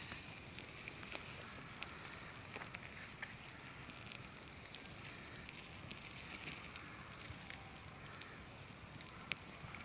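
Small wood campfire crackling: scattered sharp pops over a faint steady hiss.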